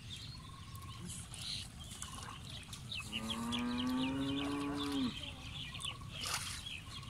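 A cow mooing once: a single long call of about two seconds, sliding down in pitch as it ends.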